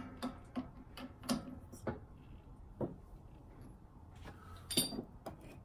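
Light metal clicks and knocks from the steel jack handle of a benchtop hydraulic shop press as it is worked at the bottle jack to back off the ram, scattered through, with a small cluster near the end.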